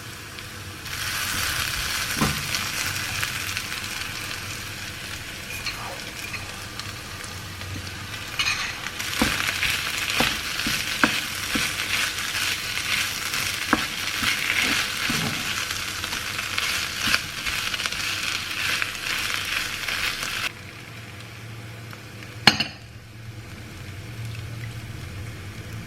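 Food sizzling in a frying pan as it is stirred, with a utensil clicking against the pan now and then. The sizzle cuts off suddenly about twenty seconds in, and a single sharp knock follows a couple of seconds later.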